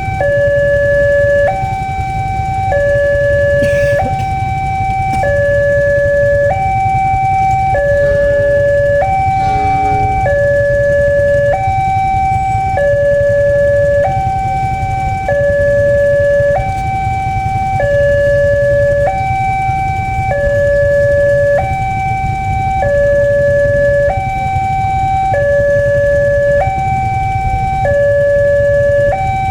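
Railroad level-crossing warning alarm sounding an electronic two-tone hi-lo signal, switching between the two pitches about every 1.2 seconds. It sounds over a steady low rumble, which means the crossing is closed for an approaching train.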